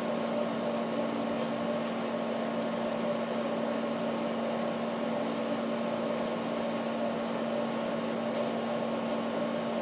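Steady machine hum, an even noise with a held low tone and fainter higher tones, and a few faint ticks.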